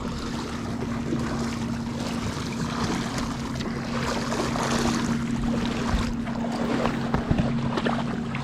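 A motor running steadily at idle, a constant low hum, under wind buffeting the microphone and water noise, with a couple of low knocks in the second half.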